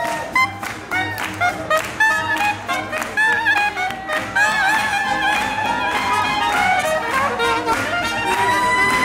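A hot jazz horn section of saxophones, clarinet and trumpet playing a swinging tune live. Sharp rhythmic hits keep a beat through the first half, then the horns hold longer notes from about halfway.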